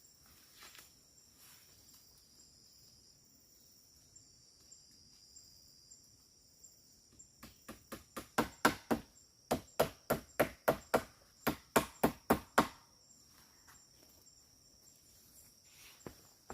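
A run of about twenty sharp strikes, about four a second, starting about halfway through with a short break in the middle, typical of chopping or hammering wood by hand. Insects chirr steadily throughout.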